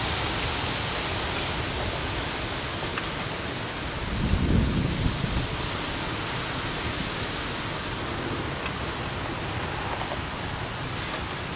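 Steady rain falling, with a short low rumble of thunder about four seconds in.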